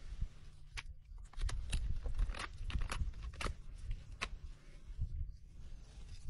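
Hoof knife paring the sole of a Shire horse's rear hoof: a run of short, sharp scraping cuts, about half a dozen over a few seconds, over low thudding handling noise.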